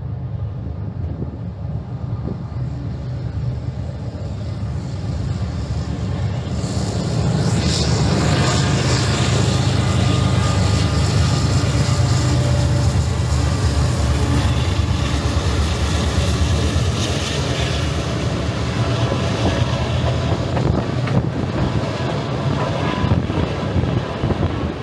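Freight train passing, a steady rumble that swells over the first eight seconds or so, with a hiss of wheels on rail joining in about seven seconds in.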